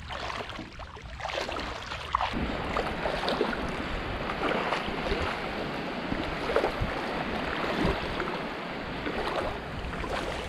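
Wading footsteps splashing and sloshing through shallow water over a coral reef flat, picking up about two seconds in and carrying on as a run of small splashes.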